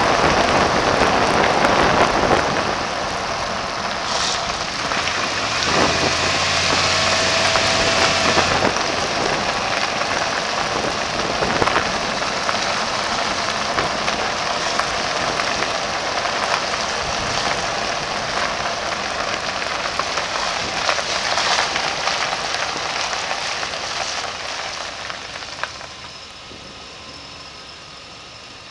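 Wind rushing over a camera microphone mounted outside on the front of a 1992 Chevy Suburban, with tyre and road noise from the moving vehicle. The noise drops away near the end as it slows to a stop.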